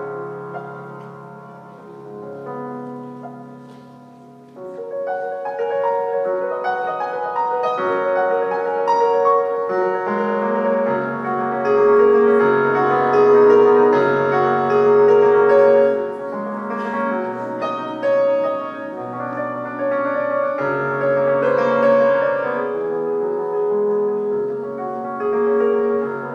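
Solo piano piece played on an electronic keyboard with a piano sound. It opens soft and fading, then from about four and a half seconds in turns fuller and louder, with many notes played in quick succession over held bass notes.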